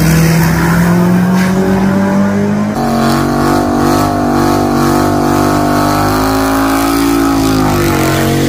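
Drag-racing car engine at high revs, its pitch rising slowly as the car pulls away from the line. About three seconds in, the sound cuts to another car's engine held at steady high revs.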